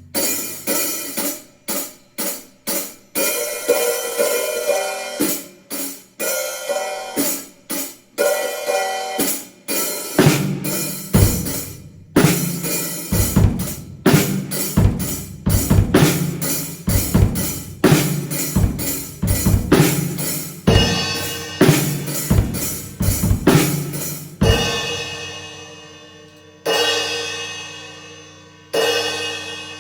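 Drum kit being played: a run of drum and cymbal hits, with deeper drum strokes joining about a third of the way in, ending with a few cymbal crashes left to ring out and fade.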